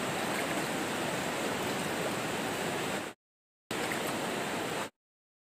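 Floodwater rushing steadily as an even wash of noise, with the sound dropping out to dead silence twice for about half a second, around three and five seconds in.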